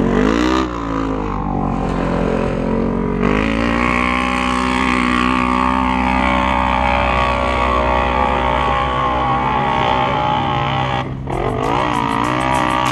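Polaris RZR side-by-side engine revving up and down, then held at high revs for several seconds under load on a steep hill climb. It cuts out briefly near the end, then revs up again.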